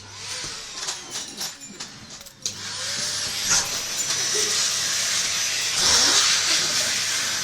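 Vacuum cleaner motor switched on about two and a half seconds in, its high whine rising as it spins up, then running steadily with a hiss and a low hum. Before that come short irregular knocks and rustling.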